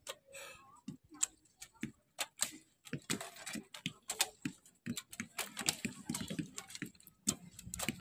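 Traditional bows being shot along a line of archers: an irregular series of sharp snaps and clacks, a few each second, from bowstrings released and arrows handled.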